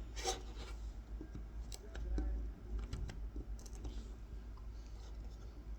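Knife tip scoring fine lines into a carved wooden honey dipper for kolrosing: short, dry scratches and light clicks, the loudest scratch just after the start.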